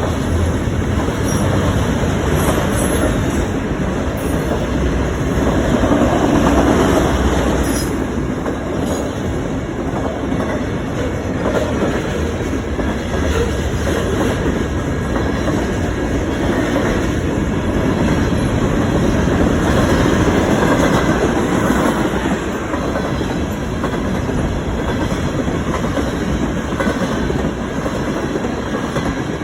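Freight cars of a CN mixed freight train rolling past, a loud, steady noise of wheels on rail with no horn.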